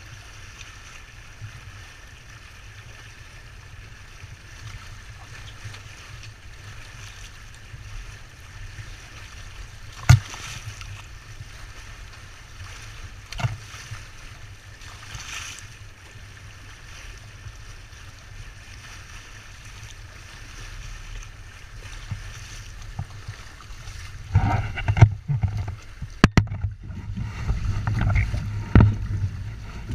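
Windrider 17 sailboat under way: a steady rush of water and wind, with a few sharp knocks. Near the end the low wind buffeting grows louder and more uneven, with several more knocks.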